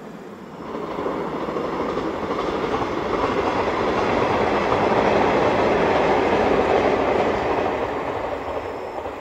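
JR Series 381 electric train running past on the rails. Its rolling noise builds over the first few seconds, peaks midway and fades away near the end.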